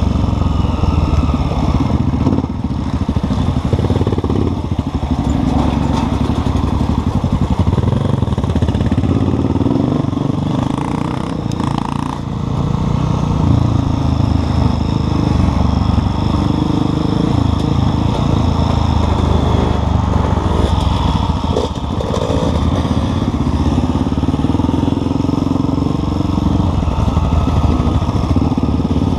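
Enduro dirt-bike engine running under way, rising and falling in pitch and loudness with the throttle, heard from a helmet-mounted camera; it eases off briefly about twelve seconds in and again a little after twenty seconds.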